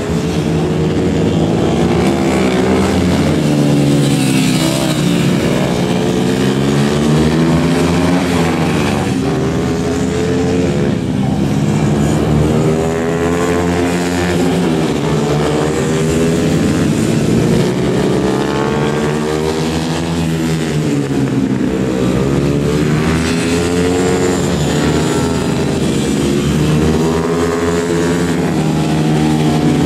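Several four-stroke racing motorcycles with manual gearboxes lapping a tight circuit. Their overlapping engine notes rise as the riders accelerate and fall as they brake and pass, over and over.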